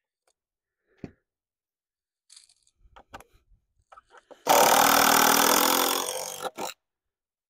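Cordless drill driving a screw into stacked 2x8 lumber: a steady motor whine lasting about two seconds starting a little past halfway, then cutting off. A few faint knocks of the boards being handled come before it and just after.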